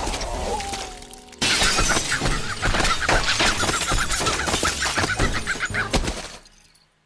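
Cartoon shattering sound effect: a sudden loud crash about a second and a half in, then a long dense run of cracking and clinking shards that fades out near the end.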